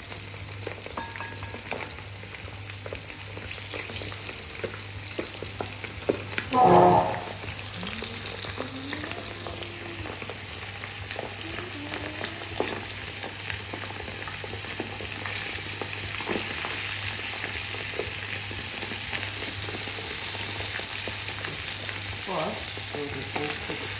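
Flour-dusted chicken wings deep-frying in hot oil: a steady bubbling sizzle that grows slightly louder past the middle. A brief loud sound about seven seconds in.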